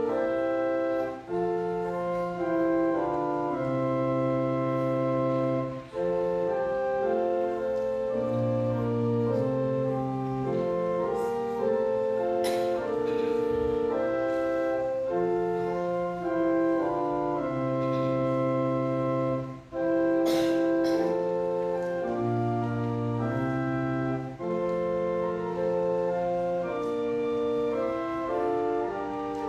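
Organ playing slow, sustained chords over a moving bass line.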